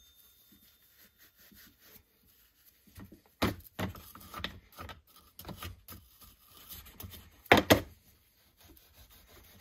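Brass wire brush scrubbing the steel head of a rusty ball peen hammer after an Evapo-Rust soak, knocking off softened rust and white residue. A series of short, uneven scrubbing strokes starts about three seconds in; the loudest pair comes near the end.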